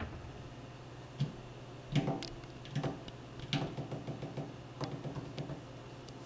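Scattered light knocks and clicks, about eight of them, over a steady low hum.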